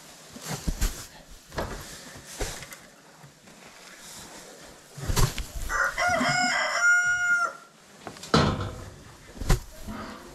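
A rooster crows once, about six seconds in, among several sharp knocks and bangs.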